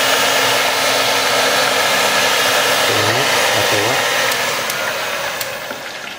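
Heat gun blowing hot air at its maximum temperature setting onto deep-fried mushrooms to crisp them and drive off excess fat: a loud, steady rushing noise that dies away near the end.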